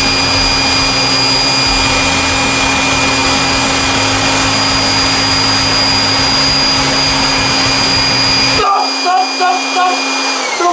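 Electric air blower running steadily with a high whine, inflating a giant balloon. Near the end its low rumble drops away and the whine falls in pitch as the motor winds down.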